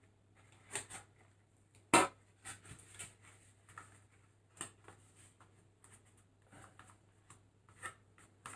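Cardboard CD longbox being handled and glued with a glue stick: faint scattered rubs, taps and rustles, with one sharp click about two seconds in.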